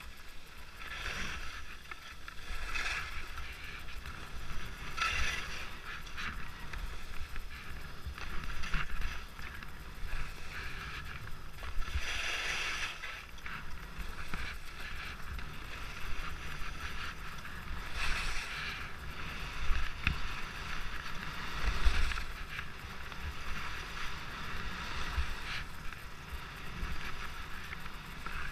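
Skis sliding and carving turns on packed, chopped-up snow: a steady scraping hiss that swells into a louder swish with each turn every few seconds, over a low rumble of wind on the microphone.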